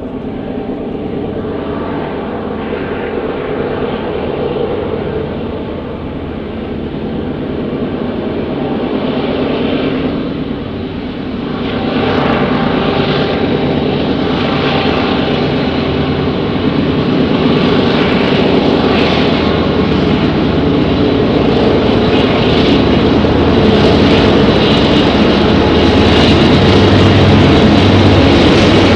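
Several Union Pacific diesel-electric locomotives running hard as they come out of a tunnel. Their engine sound builds steadily, jumps in level as the lead unit emerges partway through, and is joined by rattling from the passing locomotives.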